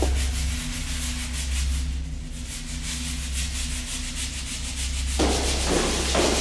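A white cloth scrubbing back and forth on a painted cinder-block wall, rubbing off writing in repeated strokes. The strokes get louder about five seconds in. A steady low hum runs underneath.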